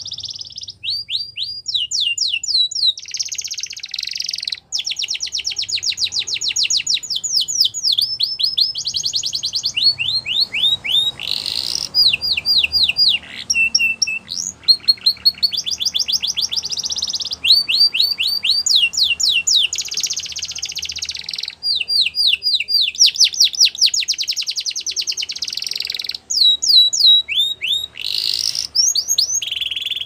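Domestic canary singing a long, loud song of rapid trills, each made of quickly repeated falling notes, with one phrase running into the next and only brief pauses between them.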